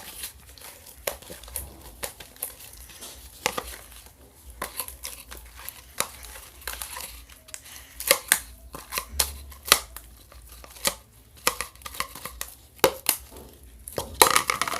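Homemade glue slime being stirred and pulled from its pot: irregular sticky crackles and snaps.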